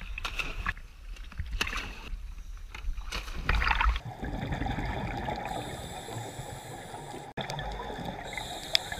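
Sea water sloshing and splashing at the surface as a scuba diver jumps in, with a loud splash about three and a half seconds in. After that the sound turns dull and steady, as heard underwater, with a hiss that comes and goes.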